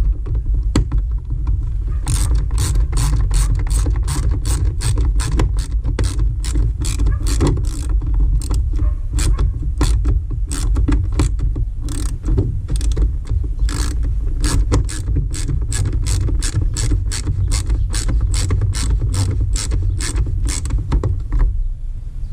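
Hand ratchet clicking as it turns a bolt of the air filter housing cover, a steady run of clicks about two or three a second that starts about two seconds in and stops near the end, over a low steady rumble.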